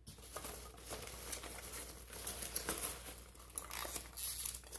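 Hands scooping polystyrene foam packing peanuts out of a cardboard box: a continuous rustling and crinkling of the foam pieces rubbing together, dotted with many small clicks.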